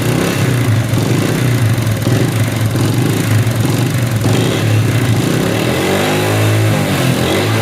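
Motorcycle engine running with a bad mechanical noise, revved up and back down once near the end. The mechanic traces the noise to the cylinder head, to worn camshaft bushes letting the cam play.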